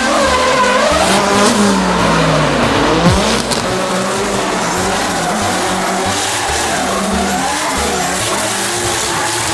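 Two drift cars sliding in tandem, tyres squealing in a wavering howl over engines held at high revs.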